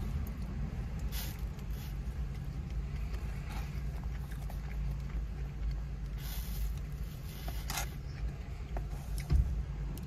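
Close-up eating sounds: chewing of beef bulgogi and fried rice, with a few short clicks and scrapes of a plastic fork against a foam takeout box, over a steady low rumble inside a car. A louder thump comes near the end.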